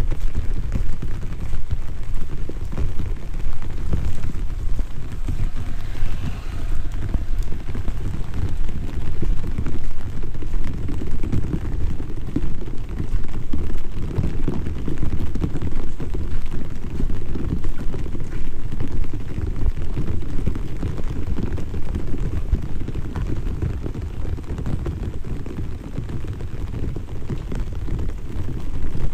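Steady light rain (drizzle) pattering, heard as a dense, even crackle that is heaviest in the low end.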